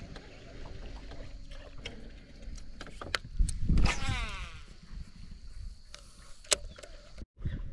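A cast with a Shimano Curado baitcasting reel: a thump, then the spool whirring and falling in pitch as line pays out and the spool slows. Knocks and clicks of tackle around the boat, with a sharp click near the end.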